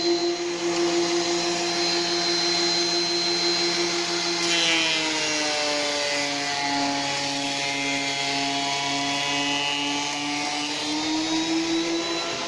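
DeWalt benchtop thickness planer running with a steady motor whine. About four seconds in, the pitch drops and holds lower while a length of small-section timber feeds through the cutters, then climbs back near the end as the piece comes clear.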